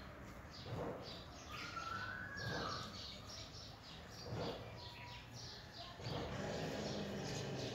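Small birds chirping in the background, with many short chirps and one longer gliding call about two seconds in.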